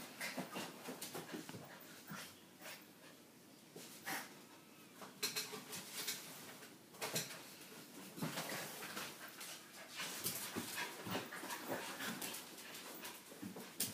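A puppy and a dog play-wrestling on a tiled floor: scattered scuffles and taps with soft dog whimpers. There is a lull about two to four seconds in, and it gets busier from about five seconds on.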